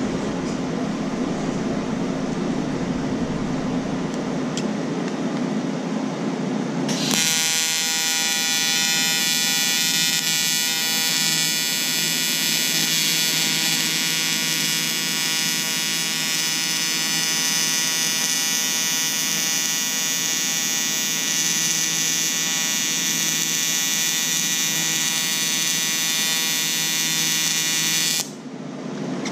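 TIG welding arc buzzing steadily. It strikes about seven seconds in, after several seconds of steady background noise, and cuts off suddenly near the end.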